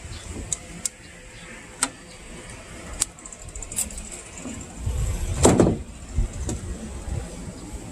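Scattered sharp clicks and light knocks from hands working on the wiring: terminals and tools being handled. One louder knock comes about five and a half seconds in, over a low rumble.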